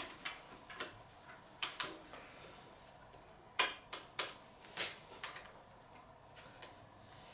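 Pliers clicking and tapping on metal in a run of irregular sharp ticks, from loosening a nut on a hand-guard mount on the handlebar. The clicks thin out after about five seconds, and the loudest comes about three and a half seconds in.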